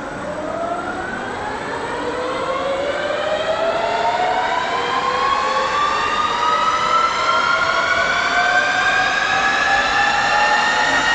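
TACCHI heavy-duty CNC lathe spindle drive accelerating: a whine made of several tones that rise steadily in pitch and grow louder, levelling off near the end.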